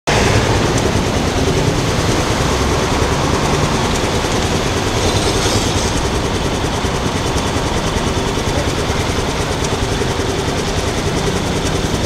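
Steady road traffic at a busy city intersection: vehicle engines and tyres in a continuous rumble, with a faint steady hum underneath.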